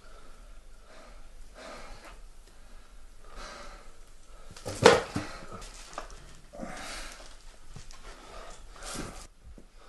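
A person breathing heavily in gasps, each breath a separate rasp every couple of seconds, with one sharp thump about five seconds in.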